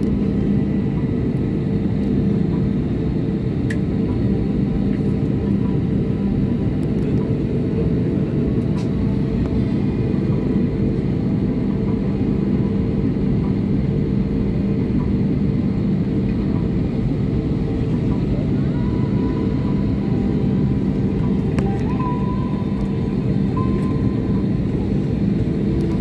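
Jet airliner taxiing, heard from inside the cabin: a steady engine drone and rumble with a constant hum that stays even throughout.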